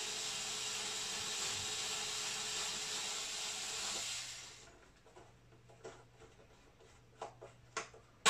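Small cordless electric screwdriver running steadily as it backs out a hex screw from a subwoofer's baffle, stopping after about four and a half seconds. A few light clicks of screw and tool follow, the sharpest near the end.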